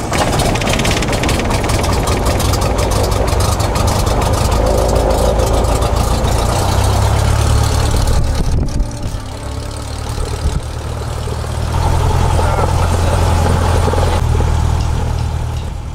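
A single-engine light aircraft's piston engine idling with the propeller turning, heard from inside the cockpit just after start-up. It is a steady low drone that dips in level for a few seconds midway and then comes back up.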